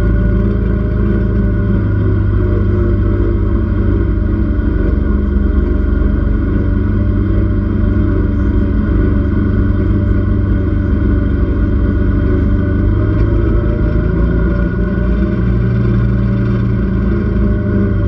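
Side-by-side UTV's engine running steadily as it drives along, heard from inside the open roll-cage cab, with a constant low rumble under it.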